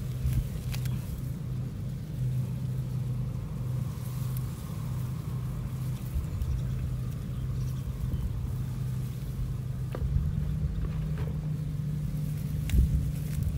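An engine running steadily in the background, a low hum that steps up slightly in pitch about ten seconds in, with a few faint clicks near the end.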